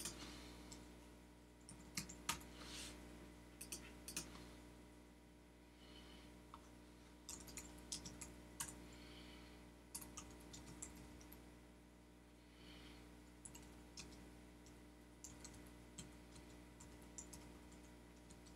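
Typing on a computer keyboard: faint key clicks in irregular bursts with short pauses between them, over a faint steady hum.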